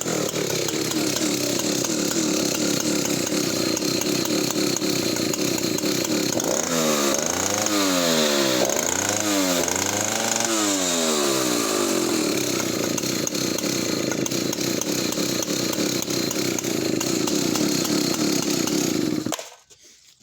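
Solo 60142 106cc vintage two-stroke chainsaw running at a steady idle. It is revved up and down three times around the middle, then switched off abruptly near the end.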